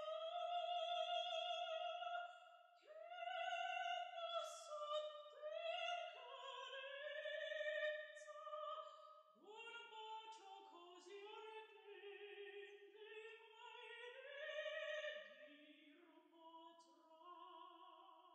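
Operatic singing: a high, soprano-range voice holding long notes with vibrato. It moves to lower notes about halfway through and fades out at the end.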